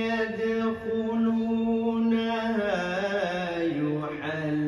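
A man reciting the Quran in the melodic, drawn-out tilawat style, holding long notes. His voice steps down in pitch about three seconds in and holds a low note near the end.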